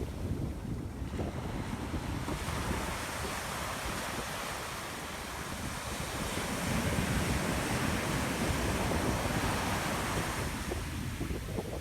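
Ocean surf washing onto a sand beach, a steady rushing wash that grows louder about halfway through, with wind rumbling on the microphone.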